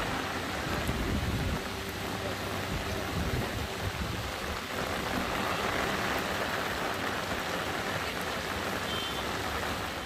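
Heavy rain with traffic on a waterlogged road: a steady hiss of rain and tyres on wet asphalt under a low vehicle rumble.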